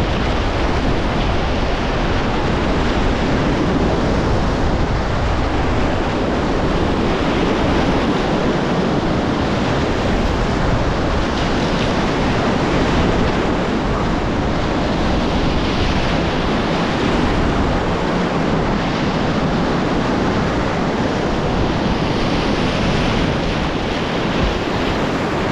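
Whitewater rapids of a river in flood, a loud steady rush of water with wind noise on the microphone.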